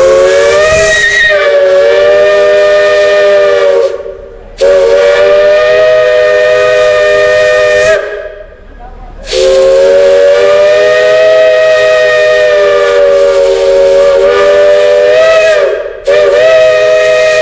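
Multi-chime steam whistle sounding a chord in repeated long blasts: two of about four seconds, a longer one of about six seconds, and another starting near the end, with steam hissing.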